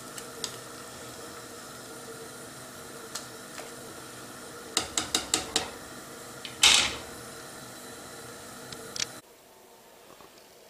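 Spaghetti boiling in a stainless steel pot on a gas stove, a steady hiss. A plastic stirring spoon knocks on the metal pot with a quick run of about five taps, then a louder clatter of pot and lid a second later. The steady hiss cuts off suddenly near the end.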